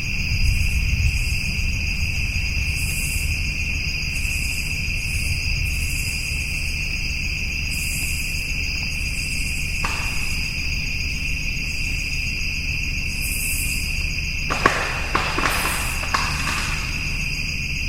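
A steady insect chorus of high trilling. About ten seconds in there is one short faint sound, and about a second and a half before the end a quick cluster of sharp clicks or snaps.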